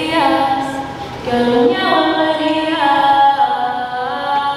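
A woman singing into a handheld microphone. A short phrase comes first, then a brief break about a second in, then long held notes that glide down from one pitch to the next.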